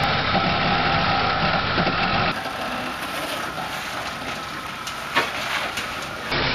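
A 4WD ute engine running at low revs as it crawls over rock. About two seconds in it gives way to a quieter, hissy stretch with one sharp knock about five seconds in, and the engine sound returns at the very end.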